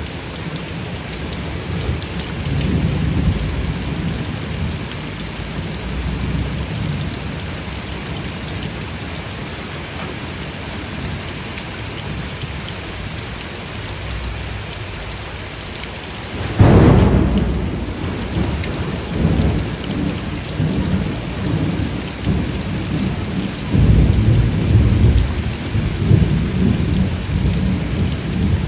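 Steady rain during a thunderstorm, with low rolling thunder. Just past halfway, a sudden loud thunderclap breaks in and fades into rumbling, and more thunder rolls near the end.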